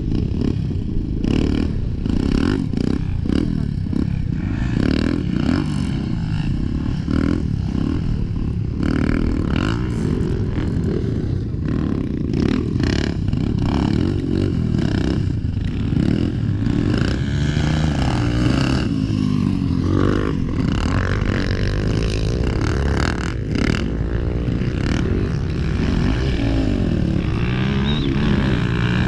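Several motocross bikes running and revving as they ride the track. In the second half their engine pitch rises and falls as the riders throttle up and back off.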